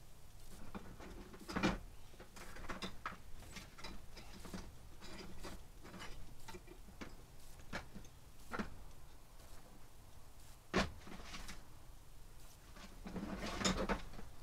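Faint, irregular clicks and knocks, with a sharper knock about two seconds in, another near eleven seconds, and a small cluster of knocks near the end.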